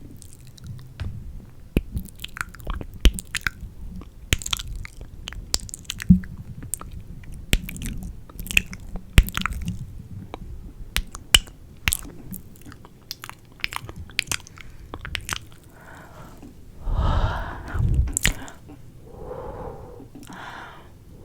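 Close-miked ASMR mouth sounds: a dense, irregular run of wet mouth clicks and smacks. From about 16 seconds in come a few louder, breathy voiced sounds.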